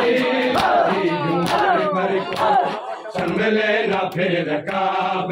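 A crowd of men chanting a noha together in unison, with sharp slaps of hands striking bare chests in matam recurring every second or so. The chanting dips briefly about halfway through.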